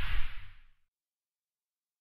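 Whoosh sound effect with a deep rumble from an animated title intro, fading out within the first second, then dead silence.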